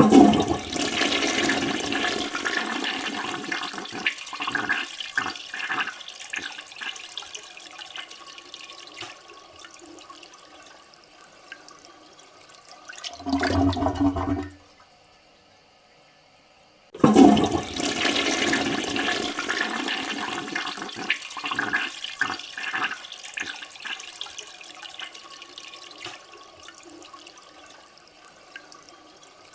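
Toilet flushing: a sudden rush of water that swirls and drains away, fading over about twelve seconds and ending in a brief low hum. After a few seconds of silence the same flush plays again.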